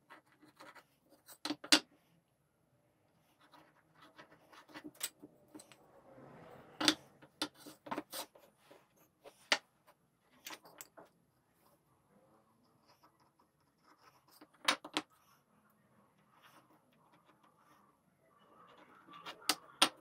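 Bench-work handling sounds: scattered light clicks and knocks of small tools and MDF pieces being picked up and set down, with faint scratching between them.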